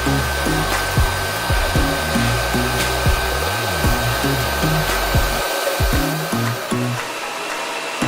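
Background music with a steady beat and a moving bass line, over a steady rushing noise. A thin high whine sounds through it and stops about two thirds of the way in.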